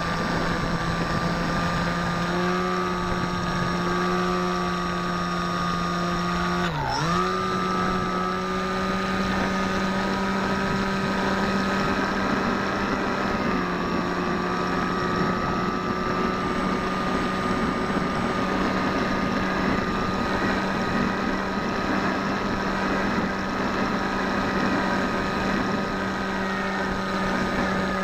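Bixler v1.1 RC plane's electric motor and propeller whining steadily, heard close up from the camera on board the plane. About seven seconds in the pitch dips sharply as the motor slows, then picks back up; there are smaller pitch shifts a couple of seconds in and again around the middle.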